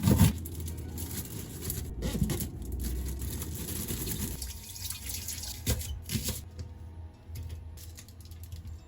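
Kitchen tap running into a sink for about four seconds, then stopping, followed by a few small knocks and drips.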